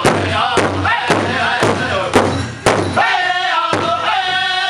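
Powwow drum group singing loud, high-pitched chant while striking a large hide-headed powwow drum in unison with sticks, a steady beat of about two strikes a second.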